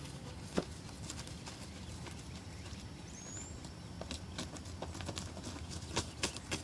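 Scattered soft thumps and knocks, coming more often in the last couple of seconds: a freshly shot wild turkey flapping its wings as the hunter picks it up.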